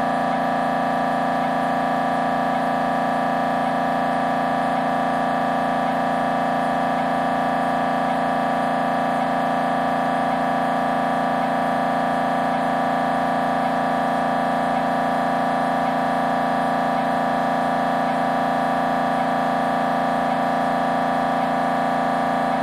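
Siemens Symphony Maestro Class 1.5 T MRI scanner running a scan sequence: its gradient coils give a steady, unbroken buzzing tone of several fixed pitches, with a faint regular ticking over it.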